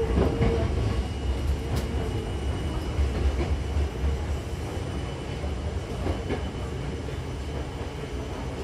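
Cabin noise inside a Hankyu 7000-series commuter train on the move: a steady low rumble of wheels on rail, with a few sharp clicks as the wheels cross rail joints.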